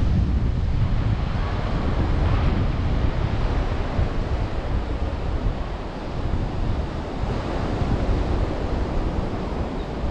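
Ocean surf washing up on a beach, with wind buffeting the microphone in an uneven low rumble.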